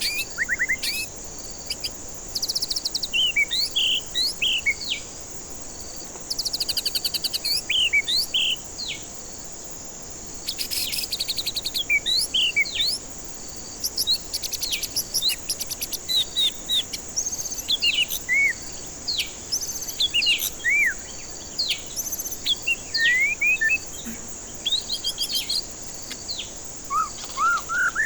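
White-rumped shama (murai batu) singing a fast, varied string of whistled notes and slurs, broken now and then by rapid rattling trills, over a steady high hiss.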